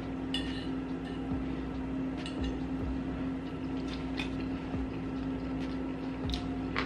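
Someone taking a bite of stuffed potato and chewing: soft, scattered clicks of a fork and mouth sounds over a steady low hum.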